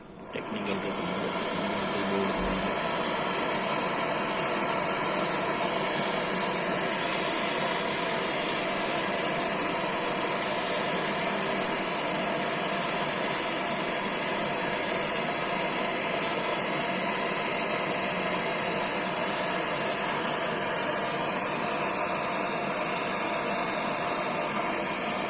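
Gas welding torch flame hissing steadily, as used to braze a repair into an air-conditioner pipe. It comes on abruptly at the start and runs evenly throughout.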